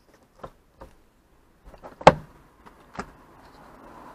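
Ford StreetKa's manual soft-top roof latch and frame being worked by hand: a few light clicks, a sharp clunk about two seconds in and a smaller one a second later, then a soft rising hiss near the end.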